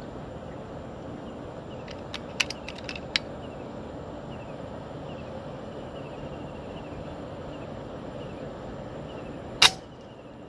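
A single sharp rifle shot near the end, short and by far the loudest sound. About two to three seconds in come a few quieter sharp clicks. Under it all is a steady outdoor hiss with faint repeated chirps.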